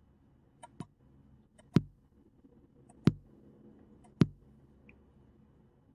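Single low electronic drum hits from Chrome Music Lab Song Maker's Electronic kit, each sounded as a beat is clicked into the rhythm row: three clear hits about a second apart, with faint mouse clicks between them.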